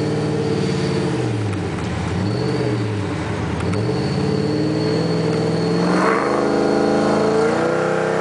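A 2005 Mustang GT's supercharged 4.6-litre V8 on Comp cams, idling unevenly with its pitch swinging up and down about every second and a half; its idle mixture is set lean so it will stay running. About six seconds in, the engine revs up as the car accelerates away.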